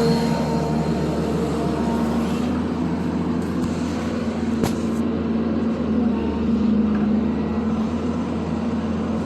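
Zoomlion excavator's diesel engine running steadily with a constant hum, and a single sharp click about halfway through.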